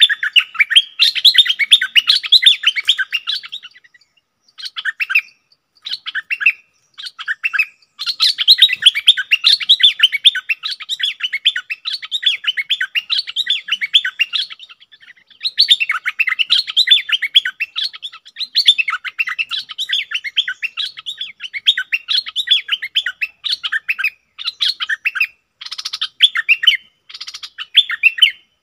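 Caged bulbul decoy bird singing: long runs of rapid, chattering chirps broken by short pauses, with a few brief phrases between the longer runs.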